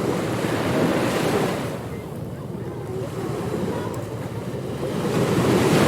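Ocean surf washing onto a beach: a wave swells and breaks, the wash eases off about two seconds in, and the next wave builds near the end.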